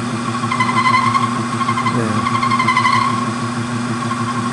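Taig lathe spindle running at about 815 RPM while a Crobalt toolbit cuts 304 stainless steel: a steady motor hum under a wavering high-pitched whine of the cut, strongest in the first three seconds.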